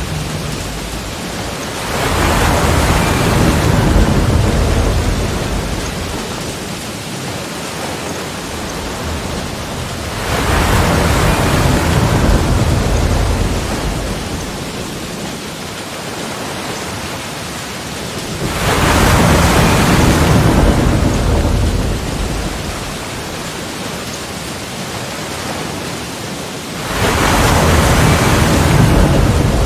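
Sea waves breaking against the shore and rocks, four waves about eight seconds apart, each surging in sharply and then washing back out into a steady rush of surf.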